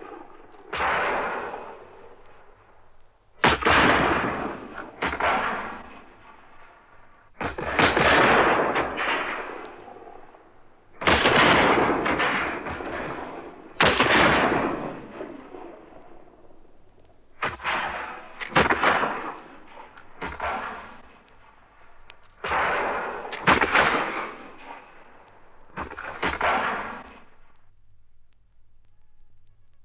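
Gunfire sound effect: about a dozen single heavy shots, irregularly spaced a couple of seconds apart, each trailing off in a long echo. The shots stop about two seconds before the end.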